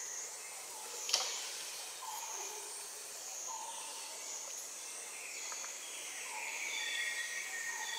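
Forest ambience: a high insect-like hiss with a short call repeating about once a second, a sharp click about a second in, and a few thin whistled notes near the end.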